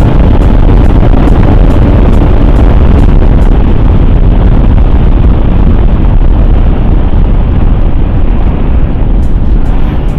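Motorcycle riding along, heard as a loud, steady rush of wind noise over the rider's microphone with the engine running underneath.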